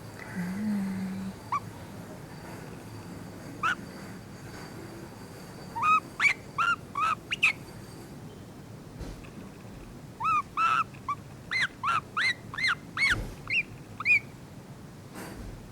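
Pet yellow-vented bulbul making short, arched chirping calls: a few single chirps, then two quick runs of about five and about eight chirps in a row. These are the soft 'baby noises' it makes while enjoying a massage.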